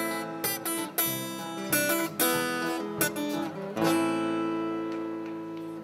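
Acoustic guitar strumming the closing chords of a live song, a chord about every half second, ending about four seconds in on one held chord that rings and slowly fades.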